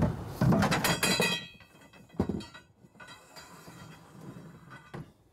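Hard objects clattering and knocking as they are handled inside a pop-up camper, with a brief metallic ring about a second in, then a single sharp knock and a small click near the end.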